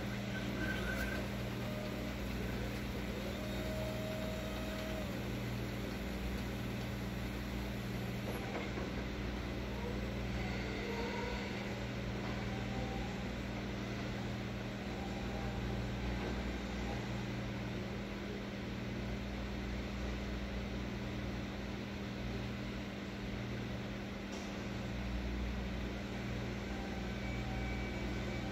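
Steady low mechanical hum with faint short whines now and then, from a STILL battery-electric reach truck driving away down the aisle.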